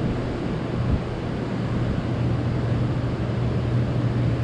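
Strong wind blowing across the microphone, a steady rushing noise with a constant low hum underneath.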